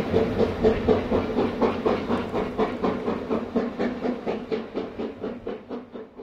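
Steam locomotive working, its exhaust beats coming in an even rhythm of about four or five chuffs a second, fading away toward the end.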